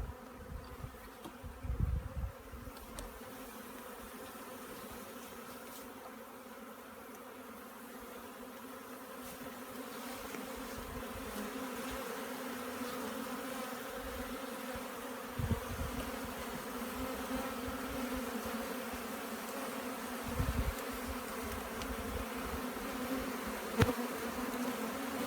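A swarm of honey bees buzzing: a steady, many-toned hum that grows louder about ten seconds in. A few low thumps and one sharp click near the end break through.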